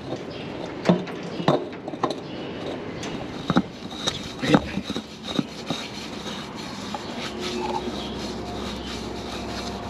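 A spin-on engine oil filter being fitted by hand, with irregular clicks, knocks and scraping of metal and plastic as it is fumbled onto its mount and threaded on. A faint steady hum comes in about halfway through.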